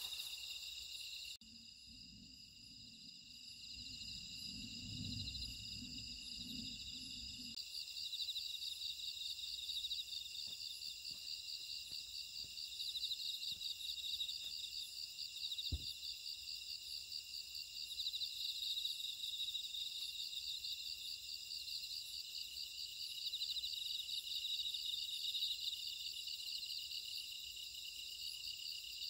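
Night chorus of crickets and other insects: a steady, fast-pulsing trill at several high pitches, with a low rumble for a few seconds after the start and a single click midway.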